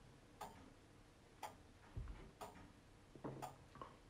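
Faint clock ticking about once a second in a quiet room, with a soft low thump about two seconds in.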